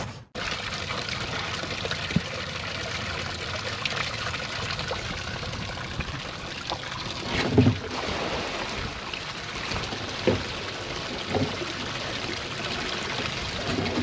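Water trickling and pouring steadily, with a few short low thumps, the loudest about halfway through.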